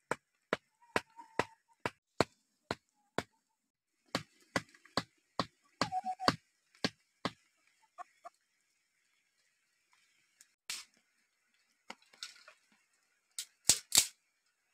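A bamboo stalk being chopped: sharp, evenly spaced strokes about two a second for the first seven seconds, then a few scattered knocks and two loud blows near the end. Hens cluck faintly a few times.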